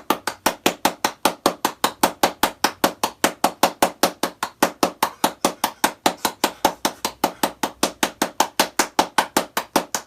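A rapid, perfectly even series of sharp taps or knocks, about six a second.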